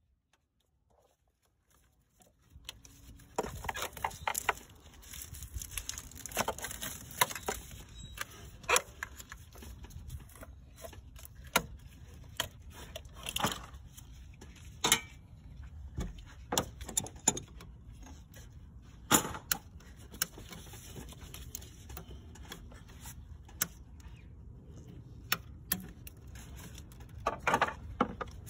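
After about two seconds of silence, scattered clicks, knocks and clinks of hand tools and metal and plastic parts being handled in a car's engine bay, irregular and of varying loudness.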